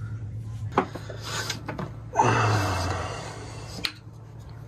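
Braided line and the whisker pole's fittings being handled while a stopper knot is tied and pulled tight: a few sharp clicks, and a loud rubbing rush lasting about a second around the middle.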